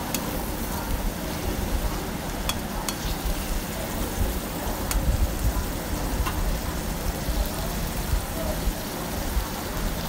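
Beef kidneys frying in masala and oil in a black iron karahi: a steady sizzle, with a spatula stirring and scraping in the pan and a few sharp clicks of metal on the iron. The masala is nearly done, the oil starting to separate from it.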